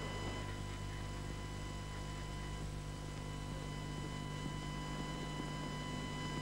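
Steady electrical mains hum, with a thin steady high tone above it and a light hiss.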